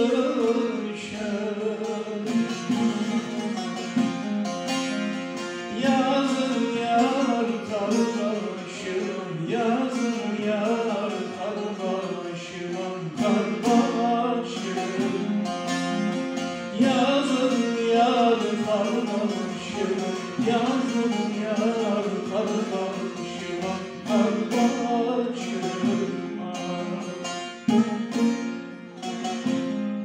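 Bağlama (Turkish long-necked lute) playing an instrumental interlude between verses of a Turkish folk song: a busy plucked melody over steady held lower notes. A sung line ends about a second in.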